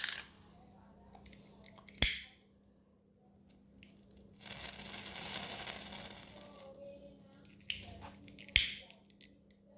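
A lighter clicked a few times, and a soft hiss of its flame for about three seconds in the middle as it heats solder paste and solder wire wrapped on the tip of a bicycle gear cable.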